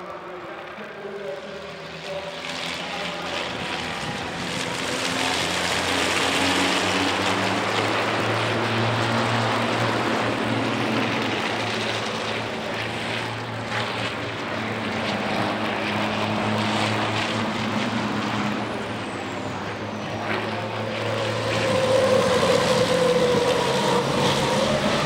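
A pack of racing trucks' turbocharged diesel engines running hard as they pass in close formation. The sound grows louder over the first several seconds and swells again near the end.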